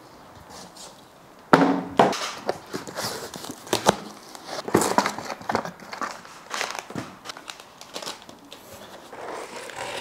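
Unboxing packaging being handled: plastic bags crinkling and cardboard and foam rustling, with irregular clicks and knocks. It starts with a sharp thump about a second and a half in, the loudest sound.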